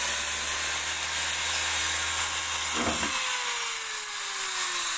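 Corded electric drill running, a small bit boring through a PVC pipe plug; the motor's whine slowly sinks in pitch, with a brief catch about three seconds in.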